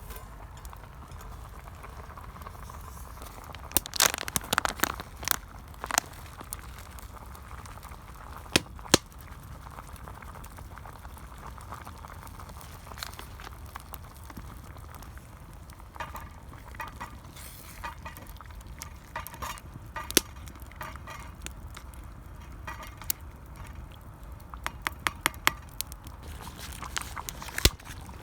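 Wood campfire crackling, with scattered sharp pops and clicks over a low steady rumble; the pops come in clusters a few seconds in, past the middle and near the end.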